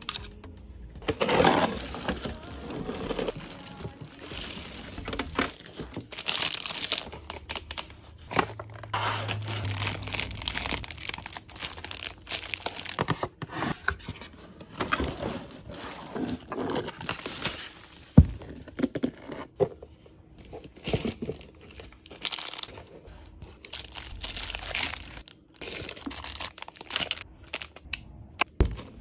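Unboxing sounds: plastic bags crinkling and cardboard box parts being handled, with scattered light taps and clicks of small plastic pieces. A single sharp click about two-thirds of the way through stands out above the rest.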